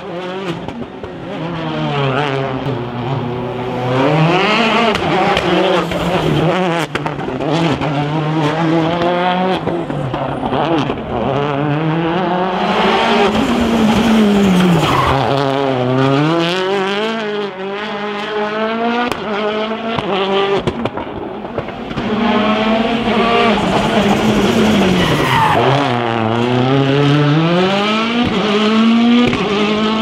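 Citroën DS3 WRC's 1.6-litre turbocharged four-cylinder rally engine at full race pace: it revs hard up through the gears, drops off for each corner and climbs again, over and over, with sharp pops in between. The tyres squeal as the car slides through the corners.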